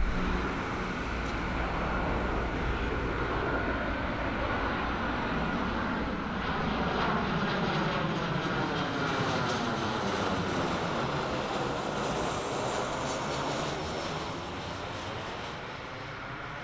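Boeing 737 twin-jet airliner passing low overhead on a flyby, a steady jet roar with a sweeping, phasing whoosh as it crosses, fading in the last few seconds.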